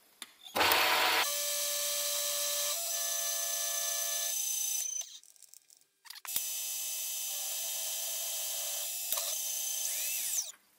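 ZX7045 mill-drill spindle running with an end mill that is milling a groove into a small rod, a steady machine whine. It starts about half a second in, stops around 5 s, starts again about a second later and stops just before the end.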